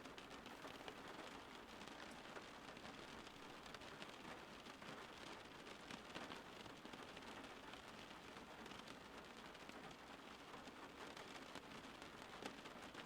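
Steady rain falling, a faint even hiss dotted with the patter of many small drops.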